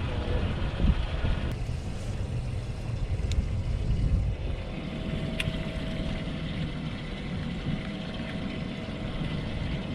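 Boat noise on open water: a low rumble, heavier in the first few seconds, under a faint steady hum, with a couple of light clicks.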